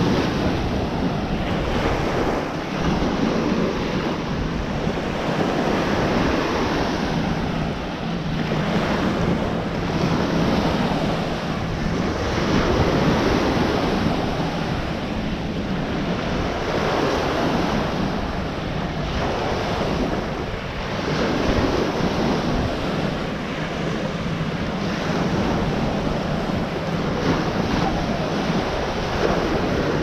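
Small ocean waves breaking and washing up on a sandy shore, the surf swelling and easing every few seconds, with wind buffeting the microphone.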